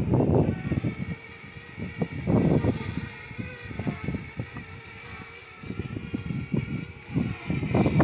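Strong wind buffeting the microphone in uneven gusts of low rumbling noise, strongest at the start, about two seconds in and near the end, with faint steady high-pitched tones underneath.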